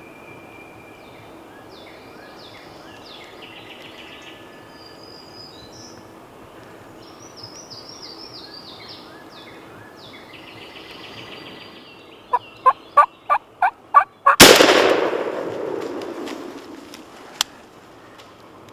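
Songbirds singing in spring woods, then a quick run of seven loud, sharp call notes, about four a second. These are followed at once by a single shotgun shot at a wild turkey gobbler, which rings off through the woods for a few seconds and misses the bird. A lone sharp click comes about three seconds after the shot.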